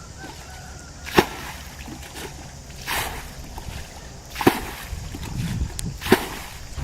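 Four sharp slaps on water, each with a short splash, about one and a half seconds apart.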